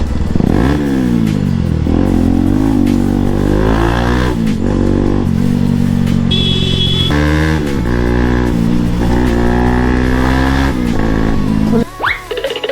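Bajaj Pulsar NS200's single-cylinder engine running while ridden. The revs fall just after the start, hold, climb again about six seconds in, and drop off sharply near the end as the throttle is shut.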